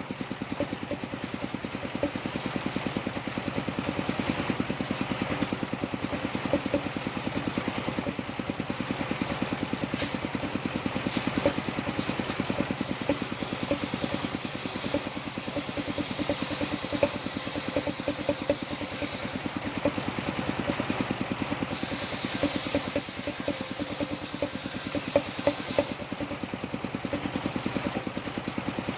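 Engine powering a wood-cutting sawmill, running steadily with a fast, even pulsing beat.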